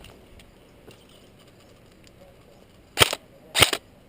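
Airsoft gun firing: two sharp shots about half a second apart near the end, the start of a steady string of shots.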